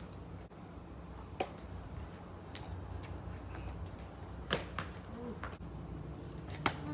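Sharp knocks of a bat hitting a rubber ball off a batting tee, the three loudest about three seconds apart, with fainter ticks between and a low steady hum underneath.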